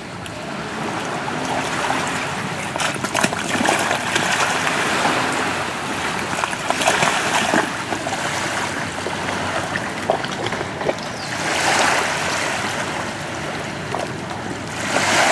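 A steady rushing wash of water with a few faint clicks, swelling louder twice in the last few seconds.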